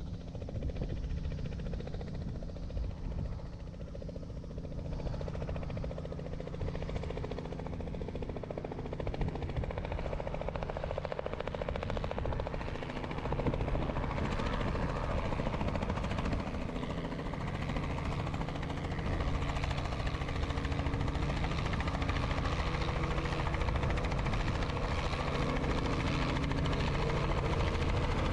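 Robinson helicopter on a normal landing approach, its rotor and engine sound growing louder as it comes closer, with a marked rise about halfway through.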